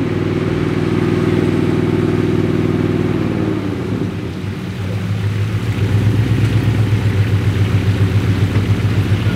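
Four-wheel-drive engine idling. It runs steadily at first, then a few seconds in gives way to a louder, lumpier idle with an even low pulse of about five beats a second.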